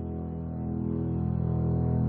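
Background music: sustained low tones held steady and slowly swelling louder.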